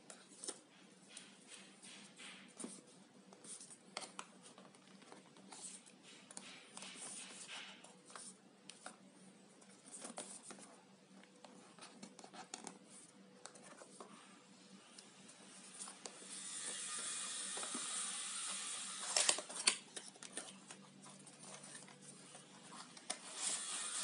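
Packaging being handled and opened: scattered light clicks and scrapes. About two-thirds of the way in comes a few seconds of steady rustling or tearing, which returns briefly near the end.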